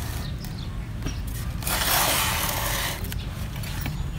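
Handling noise on a backpack seed broadcaster: a rough, scraping rustle lasting about a second, a little under two seconds in, as its padded harness is handled, over a steady low rumble.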